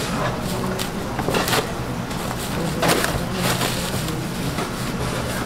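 Plastic bag crinkling in brief flurries as it is pulled off a round of noodle dough, over the steady hum of a busy market kitchen.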